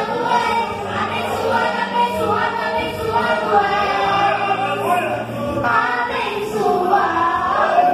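A young girl singing a worship song into a microphone, her voice held in long, wavering notes.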